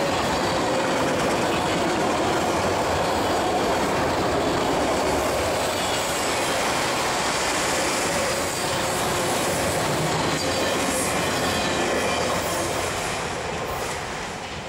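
Freight train of autorack cars rolling past close by: steady rumble and rattle of steel wheels on the rails, with a faint thin wheel squeal. The sound fades over the last second or so as the end of the train passes and moves away.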